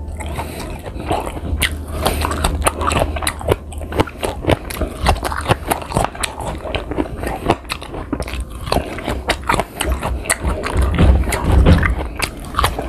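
Close-miked crunching and chewing of crisp green guava slices, with many sharp bites and crunches throughout.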